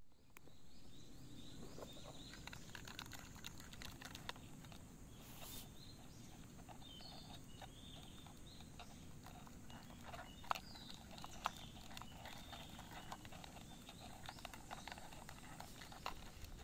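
Stag beetles scrabbling in a clear plastic compartment case: irregular light clicks and scratches of their claws on the plastic, over a low outdoor rumble with faint high chirps.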